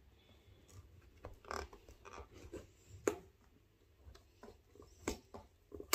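Hands handling and opening a cardboard diamond-painting kit box: faint scattered scrapes and taps of fingers on the cardboard, with sharper clicks about three seconds and five seconds in.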